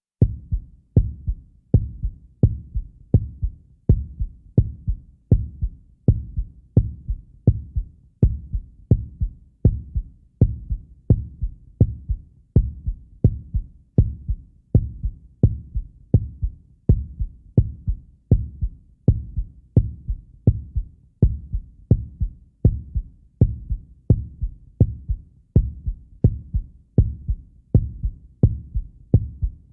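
Heartbeat sound effect: a steady lub-dub of deep double thumps, a little over one beat a second, unchanging throughout.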